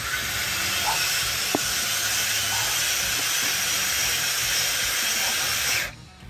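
Ryobi cordless earth auger running with its bit boring into hard ground, a steady hissing grind that cuts off suddenly near the end as the tool's kickback protection trips and stops it.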